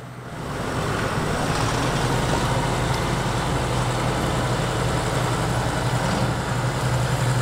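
Deutz-Fahr tractor's diesel engine running steadily under load while pulling a soil-working implement, a steady low hum with noise spread above it. It gets louder about half a second in.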